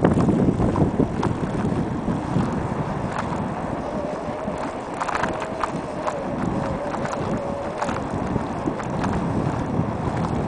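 Wind buffeting the microphone while riding a bicycle along a concrete path, with irregular knocks and rattles from the bike over the path's slab joints. A faint wavering tone runs through the middle few seconds.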